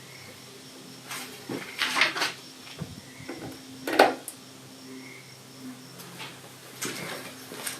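Scattered light clanks and clicks of metal parts being handled, the loudest knock about four seconds in, over a faint steady hum.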